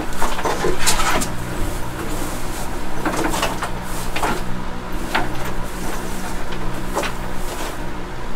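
Irregular knocks, scrapes and rustles of hands working inside a small glass terrarium, over a steady low hum.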